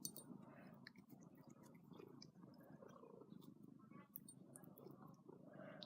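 A domestic cat purring faintly, with a few small clicks over it.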